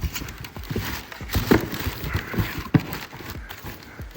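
Irregular knocks and clicks with rustling, as EFI kit parts and their packaging are handled and set down.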